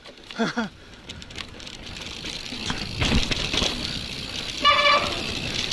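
Mountain bike tyres rolling over dry dirt and rock, with the bike rattling and wind noise growing louder as it picks up speed. A brief steady high call or toot sounds near the end.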